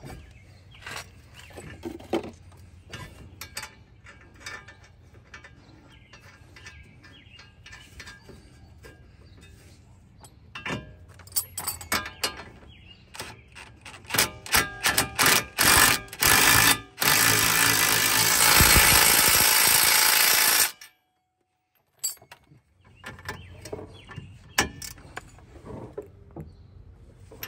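DeWalt cordless impact driver hammering the nut down on a new outer tie rod end's ball stud. It runs in several short bursts, then in one long run that cuts off suddenly. Quiet clicks of hand tools come before it.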